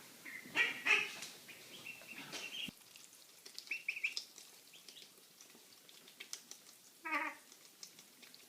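A pet making a run of short, high chirps and squeaks in its odd noises, then one short pitched call about seven seconds in.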